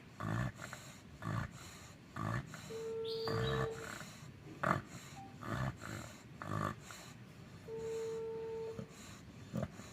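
American Bully dog snoring in its sleep: short rough snorts about once a second, one per breath. Twice a thin steady tone about a second long also sounds.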